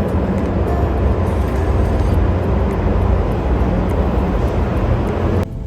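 Loud, steady vehicle rumble with a rushing noise over it, cutting off suddenly near the end.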